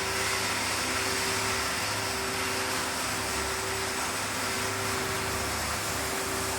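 Steady whirring hiss of a running machine over a steady low hum, growing louder just as it begins.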